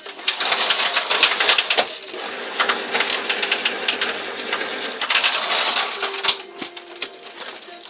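Mushroom baglog-making machine running, with a dense clattering rattle over a steady hum. The clatter eases after about six seconds, leaving the hum.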